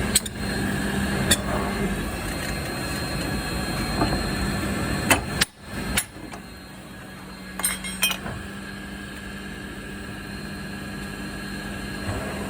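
Metal knocks and clanks from spring-making machinery, a few sharp strikes spread out over a steady machine hum.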